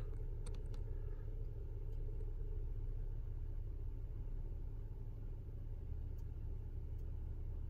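Steady low rumble of a car idling, heard from inside the cabin, with a few faint clicks about half a second in.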